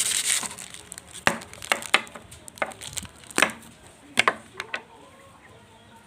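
Slime being squeezed and poked by hand, giving irregular sharp clicks and crackling pops, thickest at the very start.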